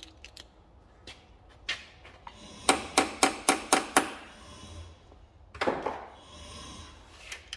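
A metal hand tool picking and tapping at packed-in dirt on a car's oil cooler pipe fitting. A few single clicks are followed by a quick run of about six sharp, ringing metallic taps, then a short scrape.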